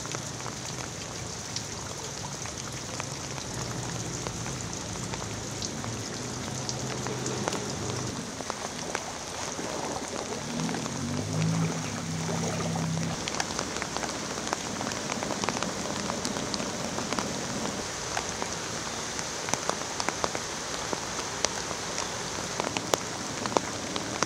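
Heavy rain falling onto floodwater, a steady hiss dotted with sharp drop ticks. A low hum rises and fades twice, in the first half and again about eleven seconds in.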